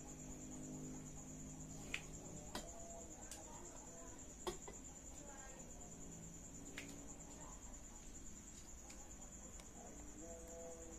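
Crickets chirring steadily in the background, with a few sharp clicks, the loudest about two seconds in and again near the middle.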